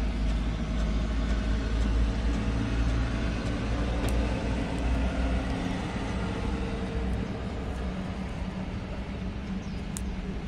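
A motor vehicle's engine running nearby: a low, steady rumble that is loudest in the first few seconds and fades gradually over the second half.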